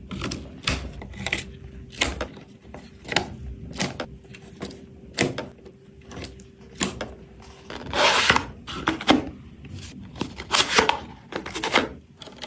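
Irregular clicks and taps of small hardware being handled, with a few longer scraping rustles about eight, eleven and twelve seconds in.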